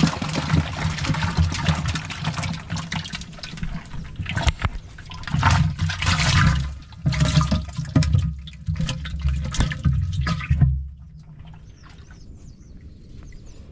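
Water splashing and pouring off in repeated surges as fish traps are hauled out of the water, stopping about eleven seconds in.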